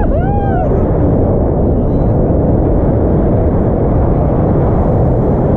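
Wind buffeting the camera's microphone in flight under a tandem paraglider: a loud, steady rumble. A short high-pitched whoop of a voice rises and falls in the first half second.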